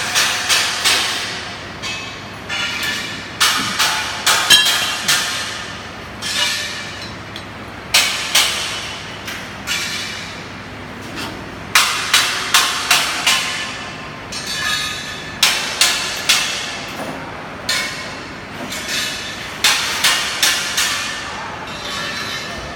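A hammer striking steel: sharp metallic blows in quick clusters of several strikes, each ringing briefly, with short pauses between the clusters.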